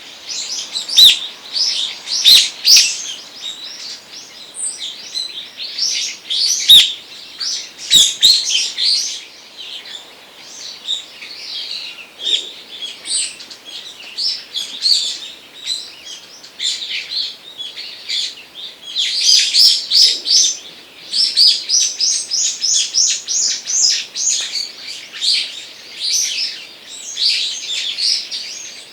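Several songbirds chirping and calling at once, short high notes overlapping almost without a break. A few sharp clicks come in the first few seconds, and a fast run of evenly repeated notes comes about two-thirds of the way through.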